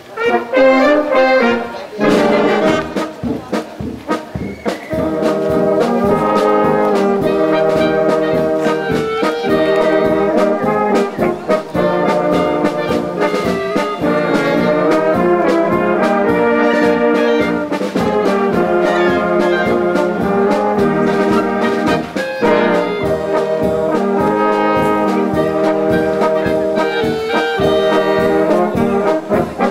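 Brass band of trumpets, tubas and other brass playing a tune with a steady beat.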